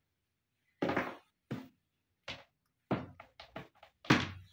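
A series of about nine short knocks and clacks, irregularly spaced and loudest near the end, from multimeter test probes and their leads being handled and fitted on the bench.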